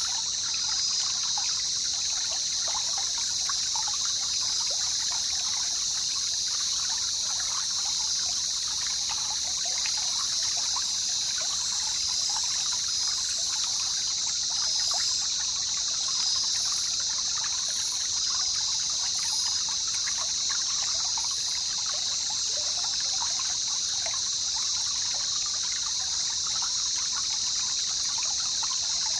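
Jungle river ambience: water trickling and babbling steadily, with a continuous high-pitched hiss above it.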